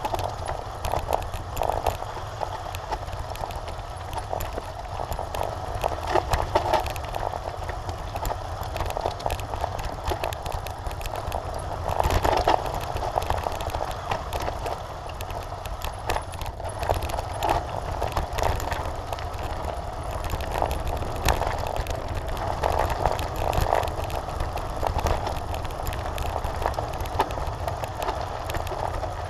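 Mountain bike ridden fast downhill over dirt and gravel, heard from a camera on the bike or rider: tyres crunching and the bike rattling over stones and roots with constant small knocks, under a steady low rumble of wind on the microphone. The rattling gets louder over rougher patches, most of all around the middle.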